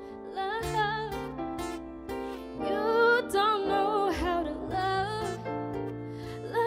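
A woman singing live into a handheld microphone, a melodic line with wavering held notes, over an instrumental backing whose low held notes change every second or two.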